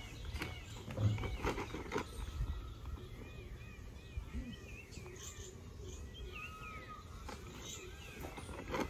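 Birds chirping over and over, short curved calls throughout, with a low steady rumble underneath. A woven plastic sack crinkles with a few sharp rustles in the first couple of seconds and again near the end as its neck is tied shut.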